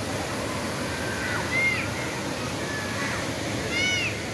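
Steady rush of water from the wading pool's cascade, with a few short high arched calls over it. The loudest call comes near the end.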